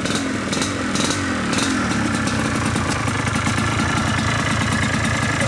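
ATV engine running in the mud. Its pitch rises and falls several times in the first two seconds as the throttle is blipped, with a few sharp clicks, then it runs on steadily at idle.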